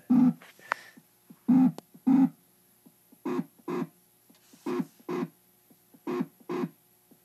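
Repeating two-beat sound carried over a CB radio channel: a pair of short pulses about every second and a half, over a faint steady hum, as the operator keys down to hold the channel against the jammers.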